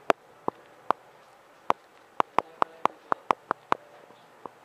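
Shih Tzu chewing a Pedigree Dentastix dental stick: about a dozen sharp crunches as its teeth bite into the chew, irregular and coming quickest in the middle.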